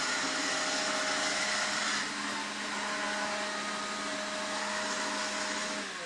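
Aiibot V9S robot vacuum cleaner running across a hard laminate floor: the steady whir of its brushless suction motor with a low hum, dropping a little in level about two seconds in.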